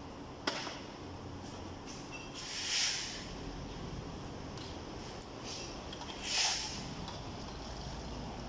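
Shovels working a pile of rocky rubble and dirt: a sharp clink about half a second in, then two longer scrapes of the blade into the pile, about three and a half seconds apart.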